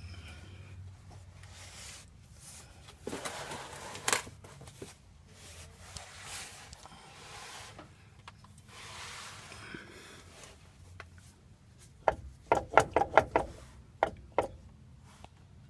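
Nissan Titan front differential clunking as the driveline is turned back and forth by hand: a few knocks about three seconds in, then a quick run of clunks near the end, with rubbing between. The clunking shows a lot of slop in the worn differential, which had shed heavy metal shavings and which the owner expects to replace.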